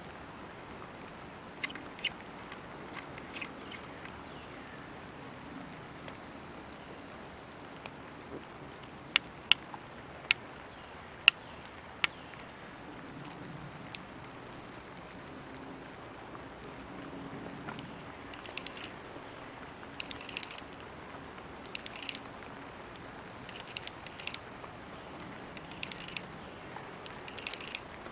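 South Bend Finalist single-action fly reel's click ratchet: a few single sharp clicks, then, later on, repeated short bursts of rapid clicking as the spool is turned and line is pulled off.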